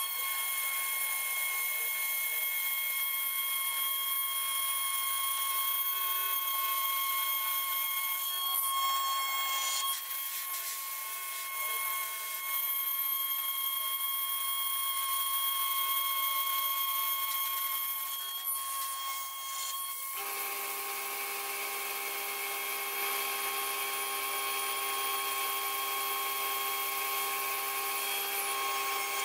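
CNC mill spindle whining steadily as a small end mill cuts a ring out of brass sheet. About two-thirds of the way through, the whine changes and a lower steady hum joins in.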